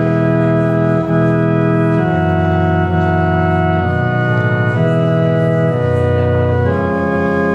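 Organ playing slow, sustained chords that change about once a second.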